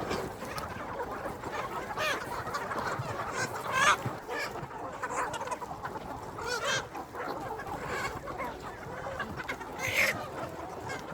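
A flock of chickens clucking continuously, with many overlapping short calls; single louder calls stand out about four seconds in and near the end.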